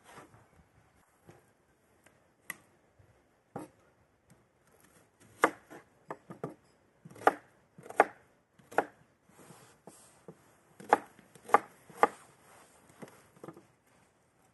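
Kitchen knife cutting raw beef on a wooden cutting board: irregular sharp knocks of the blade striking the board, a few spread out at first, then about a dozen closer together and louder from about five seconds in.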